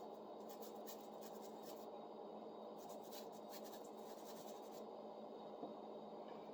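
Faint scrubbing of a rusty steel saw blade with a stiff brush, loosening surface rust after a vinegar soak. It comes as two runs of quick, scratchy strokes: one lasting about a second and a half, then a pause, then one lasting about two seconds.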